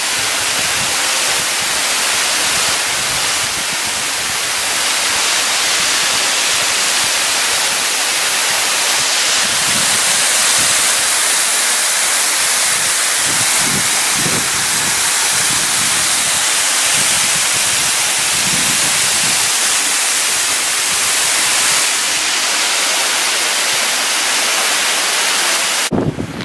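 A waterfall pouring down a rock cliff and splashing onto the rocks at its foot: a loud, steady rushing of water.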